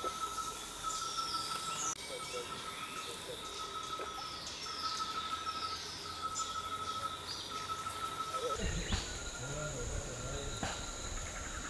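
Tropical forest ambience of insects and birds: a steady high note repeats in pulses of about a second, over short falling high bird calls. About three-quarters of the way through the background changes to a low rumble with a steady, very high insect buzz.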